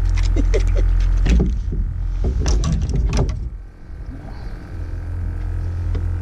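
Wind buffeting the microphone in a steady low rumble, with a run of clicks and knocks over the first three and a half seconds that dies away near the middle.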